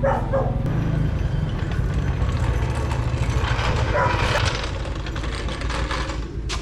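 Engine idling steadily, easing down in level a little past halfway, with a brief scraping noise over it about four seconds in.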